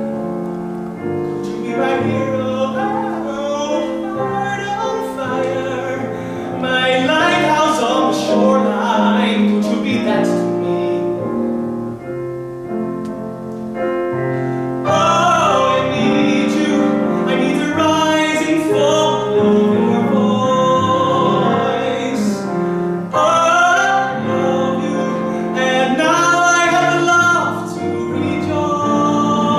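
A male voice singing a musical-theatre song with piano and cello accompaniment, the held notes sung with vibrato.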